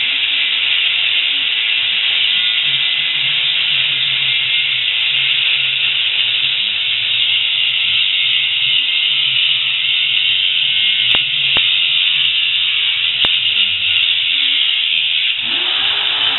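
Angle grinder cutting into a bicycle frame, a loud, steady, high-pitched grinding hiss, with a few sharp clicks in the middle. Near the end the disc comes off the metal and the motor's pitch swings up and back down.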